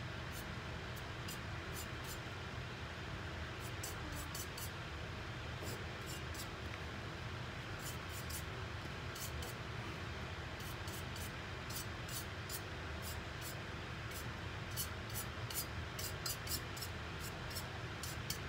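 Paintbrush bristles brushing and dabbing against a painted cup in short, irregular scratchy strokes, laying on black streaks for a distressed finish. A steady hiss of room noise sits underneath.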